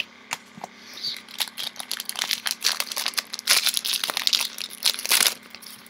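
Foil wrapper of a Yu-Gi-Oh booster pack crinkling and crackling as it is handled and opened, busiest in the second half.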